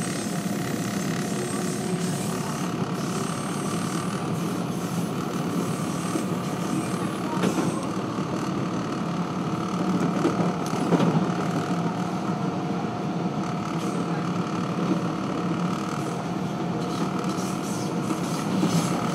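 Subway train running along open track, heard from inside the lead car: steady wheel-on-rail noise with a faint steady whine, and a few sharper knocks about halfway through.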